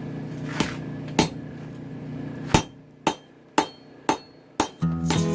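Hammer blows on hot chainsaw-bar steel at the anvil, about seven sharp ringing strikes roughly every half second as the knife blade is forged to shape. A steady hum underneath stops about halfway through, and guitar music comes in near the end.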